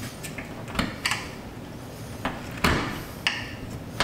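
Flathead screwdriver prying and scraping in the groove of a screen door frame while the old rubber spline is tugged out: irregular scrapes and clicks, the sharpest about two-thirds of the way through.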